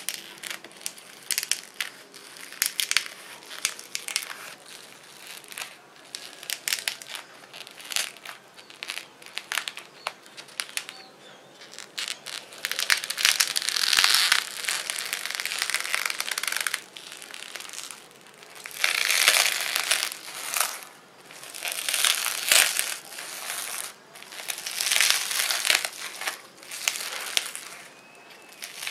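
Pink foam-bead slime (floam) being pressed and squeezed by hand, the tiny polystyrene beads crackling and popping. The first half is a scatter of sharp pops; from about halfway it turns into longer bursts of dense crackling, one with each squeeze.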